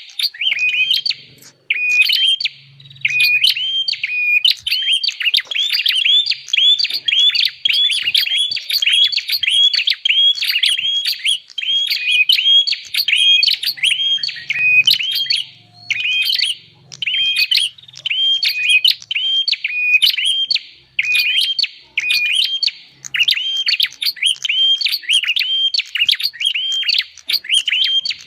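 Prenjak (prinia) calls from a lure recording: a fast, unbroken series of sharp, high chirps, each a short held note that hooks upward, repeated several times a second.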